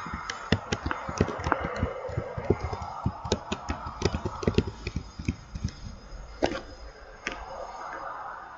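A quick, irregular run of sharp clicks and knocks, several a second, over a steady hiss; the knocks thin out near the end.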